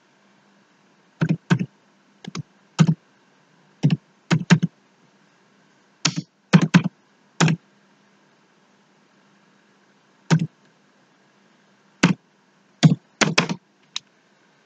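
Computer keyboard typing: irregular single keystrokes and quick runs of several keys, with pauses of up to a couple of seconds between them.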